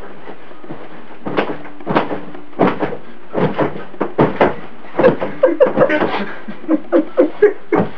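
Irregular run of soft thumps as a mattress is pushed down over and over, bouncing a person lying face-down on it; the thumps come faster from about four seconds in.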